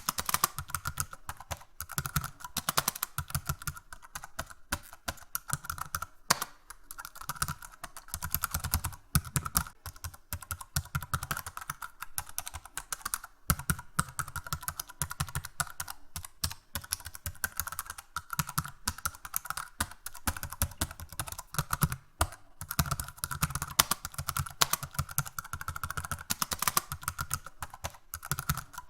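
Fast, hard typing on a computer keyboard: a dense, unbroken stream of keystrokes struck forcefully, as in angry typing.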